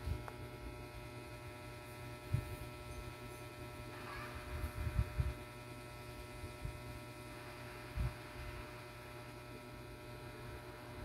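A steady hum made of several fixed tones, with a few dull low thumps: one about two seconds in, a cluster around five seconds, and one near eight seconds.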